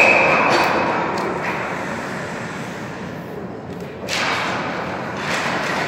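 Youth ice hockey in an indoor rink: a short high referee's whistle blast right at the start. Then a general rink clatter of skates and sticks on the ice fades, and a sudden clack and scrape about four seconds in, as the faceoff is taken.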